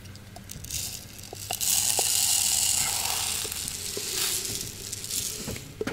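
Granular Tannerite exploding-target powder pouring from an upturned plastic jar into the Tannerite container: a steady grainy hiss that starts about a second and a half in and fades near the end, with a few light ticks of the plastic jars.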